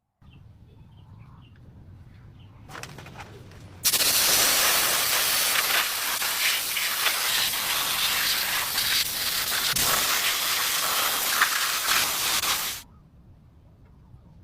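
A loud, steady hiss of a spray or jet of air. It starts suddenly about four seconds in, lasts about nine seconds and cuts off abruptly, after a shorter, quieter burst just before.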